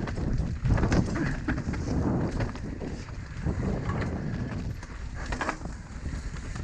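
Mountain bike riding down a rough trail: wind buffets the microphone with a low rumble, broken by scattered clattering knocks from the bike over bumps.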